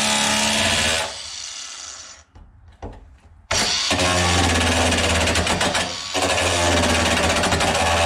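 Cordless angle grinder grinding the steel of a truck cab's B pillar, throwing sparks. It dies away about a second in and goes quiet, then grinds again at full speed from about three and a half seconds, with a brief dip near six seconds.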